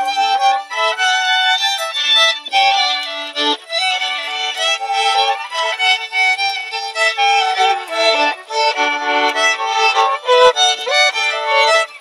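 Fiddle playing a traditional dance tune: a quick, changing melody with a held lower note sounding beneath it at times.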